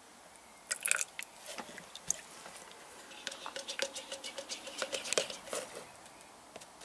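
A stirring rod tapping and scraping against the sides of a paint mixing cup as thinned paint is stirred. It comes as a quick run of taps, about five a second, for a couple of seconds past the middle, after a few sharper clicks about a second in.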